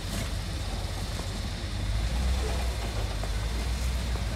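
Hummer H3's engine running low and steady at crawling pace as the 4WD climbs a rock ledge, swelling louder about two seconds in as it works up the step.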